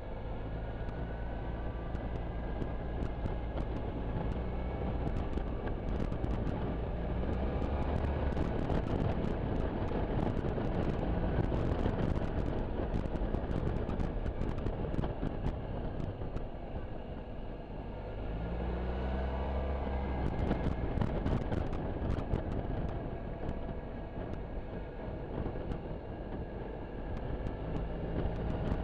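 Suzuki Burgman 650 maxi-scooter's parallel-twin engine running under way, with wind rushing over the microphone. The engine note rises twice as the throttle opens, about a fifth of the way in and again past halfway. The wind rush is loudest in between.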